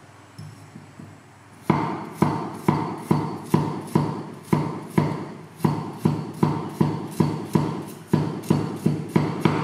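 Cleaver slicing a carrot on a thick round wooden chopping block: steady knocks of the blade on the wood, about two a second, starting a little under two seconds in.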